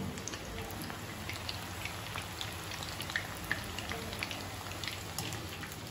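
Battered chicken pieces deep-frying in hot oil in a kadai: a steady sizzle dotted with many small, irregular pops and crackles.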